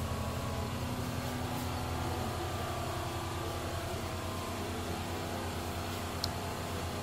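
Steady low rumble of background noise, with one brief faint click about six seconds in.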